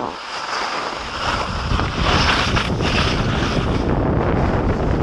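Wind buffeting the microphone of a skier's camera, together with the hiss and scrape of skis over hard-packed snow. It grows louder about a second or two in as the skier gathers speed downhill.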